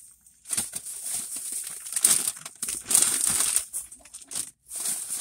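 Plastic bags being handled, crinkling and rustling in irregular bursts, loudest about two and three seconds in.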